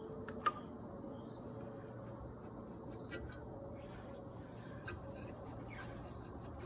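Faint steady chirring of crickets over a quiet background, with one sharp click about half a second in and a few faint ticks later, small sounds from prying at a rusted exhaust manifold.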